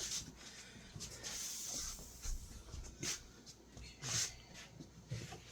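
Several short hissy rubbing strokes, one longer about a second in, with a few soft knocks between.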